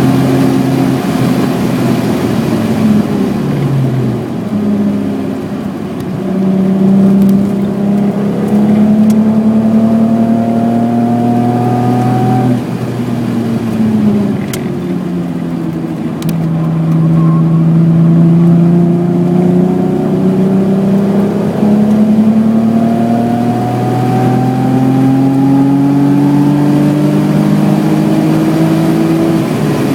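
BMW E28's 3.6-litre straight-six under hard acceleration on track, revs climbing and falling with the gears. The revs dip about four seconds in, climb again, drop sharply about twelve seconds in, then build slowly and steadily.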